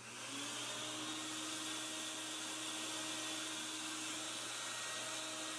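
Shop vacuum running steadily, blowing air into an air-caster platform to float it on a cushion of air: an even hiss with a faint steady hum, coming up to speed in the first half second.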